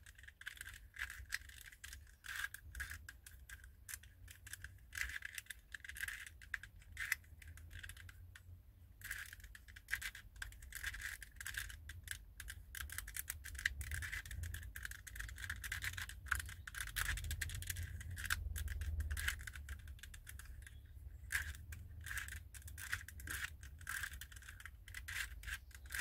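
A knight chess-piece twisty puzzle, a 2x2 mechanism in cast polyurethane resin, being turned by hand through a solve: a continuous stream of irregular soft clicks and clacks as its layers turn.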